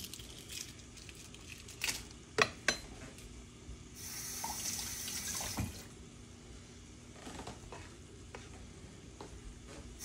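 Kitchen tap running for about two seconds in the middle, water splashing into the sink. Around it come a few sharp clicks and knocks of a spoon against eggshell as a hard-boiled egg is peeled.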